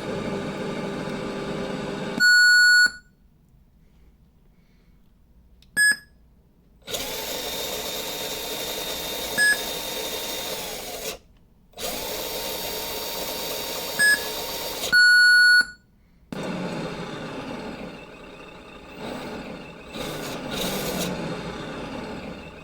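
An RC truck's electronic engine sound kit playing a simulated engine through its speaker in several stretches with silent gaps, while the setup electronics give loud single-pitched beeps, the loudest about two seconds in and about fifteen seconds in; the simulated engine runs again, rising and falling, for the last several seconds.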